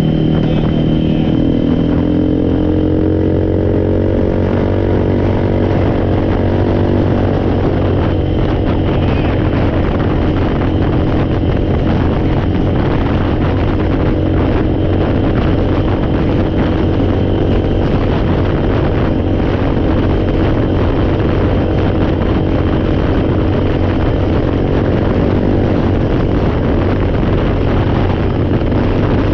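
ATV engine running under way, rising in pitch over the first couple of seconds and then holding a steady speed.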